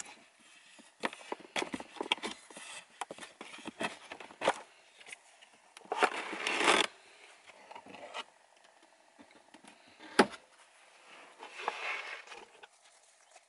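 Handling things in a small wooden cupboard: scattered clicks, knocks and plastic rustling, a denser rustle for about a second around six seconds in, and one sharp wooden knock about ten seconds in.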